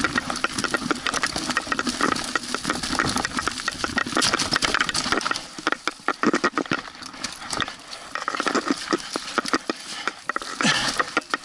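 Mountain bike riding down a rough forest trail: the bike rattles with a fast, uneven run of sharp clicks and knocks as the tyres run over dry leaves, roots and stones.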